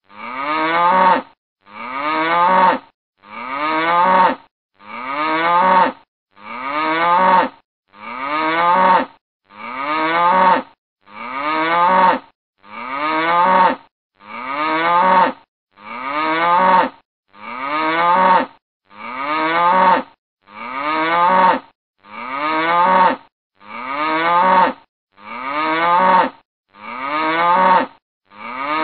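Cow mooing: the same one-second moo repeated over and over about every second and a half, each swelling in loudness and then cutting off sharply.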